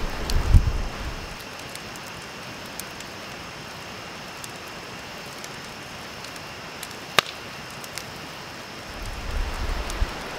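Wood campfire crackling, with scattered small pops and one sharp, louder pop about seven seconds in. Low rumbles of wind on the microphone at the start and again near the end.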